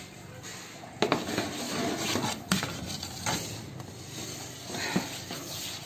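Metal clanks and scrapes of a baking tray and oven door being handled, with a few sharp knocks about a second in, around two and a half and three seconds, and near five seconds, over a steady hiss.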